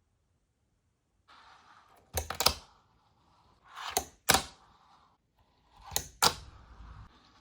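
A fingerboard clacking on a hard surface: four pairs of sharp clacks, about two seconds apart.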